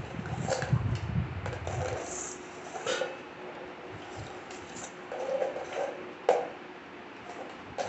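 Scattered soft rustles and light clicks of a dog playing with an ice cream box held out by hand, with one sharp click about six seconds in. Low rumbling in the first two seconds.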